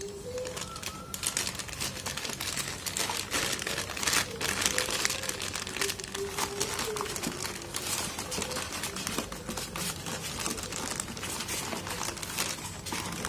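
Clear plastic bags crinkling and rustling in irregular bursts as they are handled.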